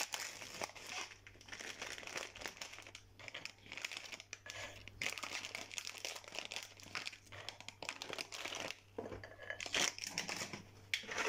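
Plastic biscuit wrappers crinkling as they are handled and opened, a dense irregular crackle with a few short pauses.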